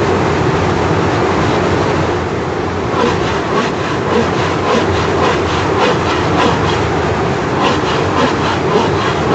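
Steady rumbling noise, joined about three seconds in by a regular clatter of short clicks, roughly four a second.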